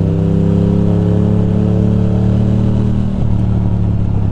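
Ducati Monster's L-twin engine running steadily under way, heard from the rider's helmet camera, with a brief change in engine note about three seconds in.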